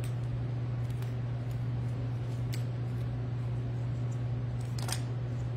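Poly burlap mesh being folded and banded by hand: light rustles and small clicks, with a louder rustle near the end, over a steady low hum.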